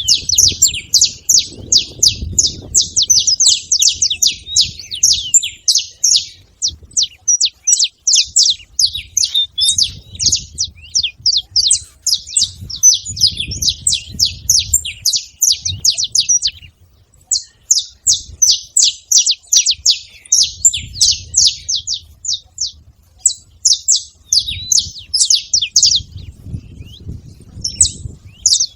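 Saffron finch chirping and singing in a rapid, continuous string of high notes, with short breaks about halfway through and near the end, over an intermittent low rumble.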